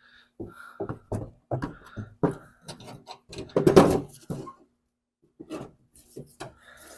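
A series of short knocks and clinks of tools and parts being handled, with one louder, longer clunk about four seconds in.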